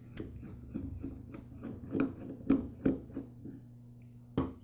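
A screwdriver backing the small pilot-jet cap screw out of a lawn mower carburetor's metal body: a run of light metallic clicks and scrapes, then one sharper click near the end.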